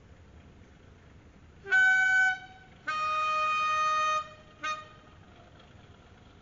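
Steam locomotive whistle blown three times: a short blast about two seconds in, a longer, slightly lower blast a second later, then a brief pip.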